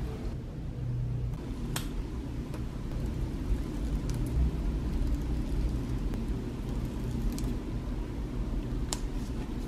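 A steady low rumble, with a few faint sharp clicks and crinkles from paper and tape being handled, clearest about two seconds in and again near the end.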